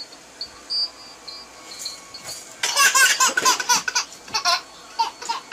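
A baby laughing: a run of quick, breathy giggles that starts about two and a half seconds in and lasts about two seconds.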